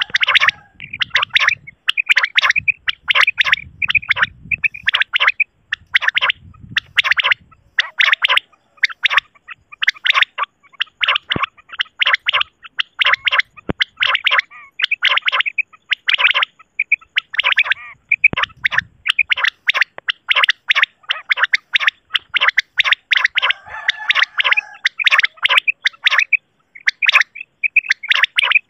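Common quail (batair) calls: short, sharp notes repeated rapidly in quick runs with barely a pause between them. A faint low rumble sits under the calls in the first few seconds and again briefly in the middle.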